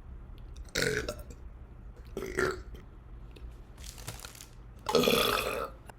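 A woman burping four times: a short, sudden burp about a second in, a smaller one around two seconds, a faint one around four seconds, and the loudest and longest near the end, lasting most of a second.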